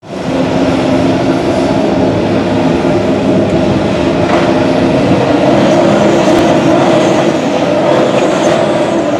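A 2016 Formula 1 car's V6 turbo hybrid engine running at a steady pitch, without a clear rise or fall.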